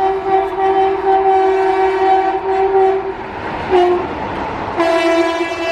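Electric locomotive horn of an Indian Railways express train: a long steady blast that stops about three seconds in, a brief toot a second later, then another long blast near the end, over the rumble of the train.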